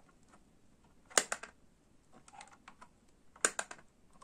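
Plastic turning knob on a Sunny Starscout toy lantern clicking as it is twisted: two quick runs of clicks about two seconds apart, with fainter ticks in between.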